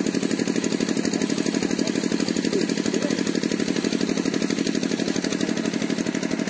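An engine running steadily with a fast, even pulse.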